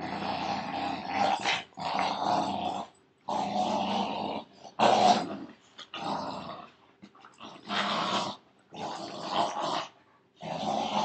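Puppies growling in play while tugging on a bicycle tire: a string of growls, each about a second long with short breaks between, the loudest about five seconds in.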